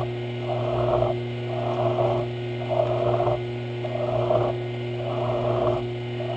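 Round file rasping against a brass rod spinning in a Sherline metal lathe, hand-shaping the brass in strokes about one a second, over the steady hum of the lathe's motor.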